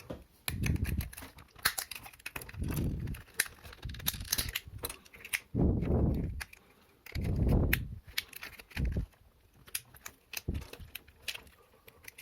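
Plastic housing of a push-button lamp switch being forced apart: many sharp clicks and cracks of the plastic clips and case, with a few longer dull low thuds of the parts being worked in the hands.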